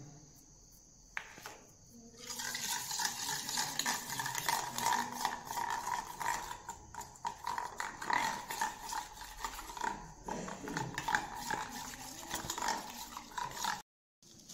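Metal spoon stirring and scraping against a stainless steel bowl while mixing egg batter with cornflour and flour: a dense run of scrapes and clicks that starts about two seconds in.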